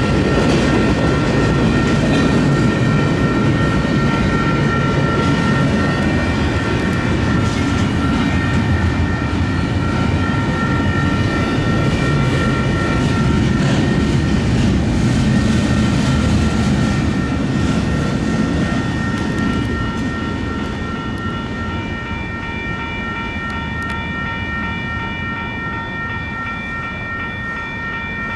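Double-stack intermodal well cars of a freight train rolling through a grade crossing, the wheels rumbling and clattering, then fading about two-thirds of the way through as the last cars pass. Crossing signal bells ring steadily throughout.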